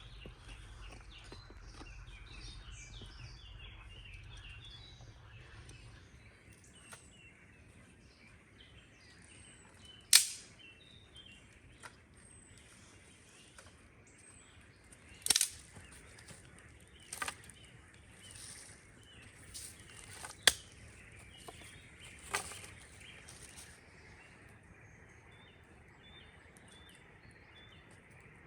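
About five sharp, loud cracks of burning or breaking wood, spaced a few seconds apart, with small birds chirping in the background.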